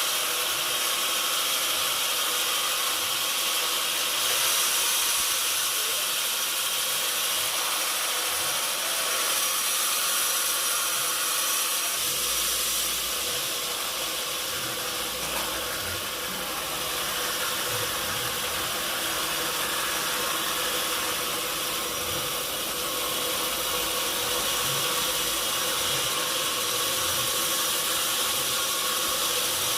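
Sawmill machinery running steadily: a continuous hiss with a few constant whining tones, and a low rumble joining about twelve seconds in.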